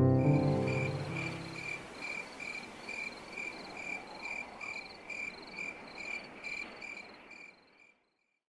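Cricket chirping steadily, about two and a half chirps a second, over a faint night hiss, as a piano chord dies away at the start; the chirping fades out near the end.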